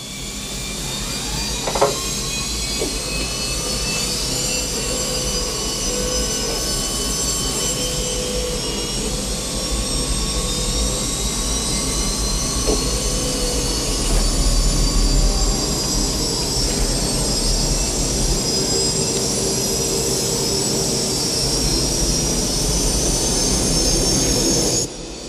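Jet engines running, with several high whines slowly rising in pitch over a steady low rumble, as in a spool-up before launch. There is one sharp click about two seconds in, and the sound cuts off abruptly near the end.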